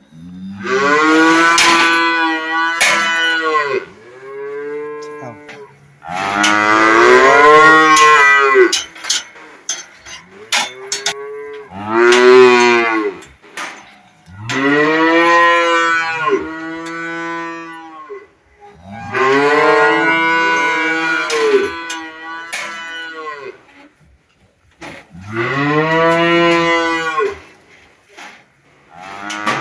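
Cow mooing loudly over and over: about seven long, drawn-out moos, each bending in pitch, with short pauses between them.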